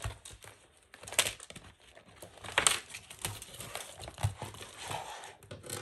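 Plastic binder pages and pouches crinkling and rustling as a cash budgeting binder is handled and opened, with a few sharp clicks.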